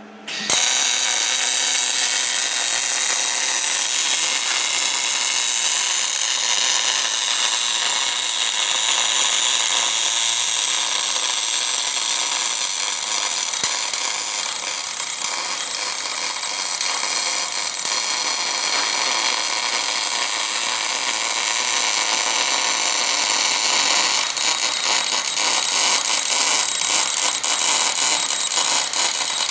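Wire-fed (MIG/MAG) welding arc striking about half a second in, then burning steadily with a continuous hiss and crackle as the orbital rig welds cast iron. The crackle grows more irregular near the end.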